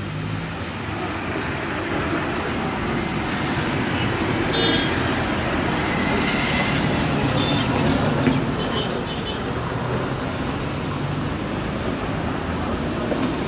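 Darjeeling Himalayan Railway steam locomotive hissing steam as it creeps forward, the noise building over the first few seconds. A short high-pitched toot comes about four and a half seconds in.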